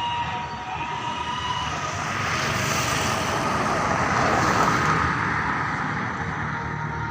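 A tour bus's multi-tone telolet horn holds its last note until about a second and a half in, then the bus's running noise swells to a peak and eases off as it moves past.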